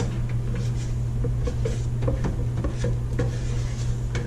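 Steady low hum with scattered light clicks and taps of pots and utensils being handled.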